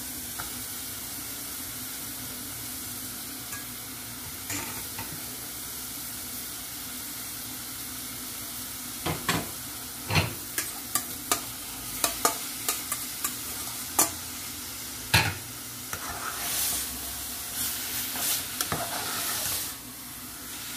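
Ground cabbage and vegetables frying in a pot with a steady sizzle. From about nine seconds in, a spoon knocks and scrapes against the pot as raw ground beef is added and stirred in.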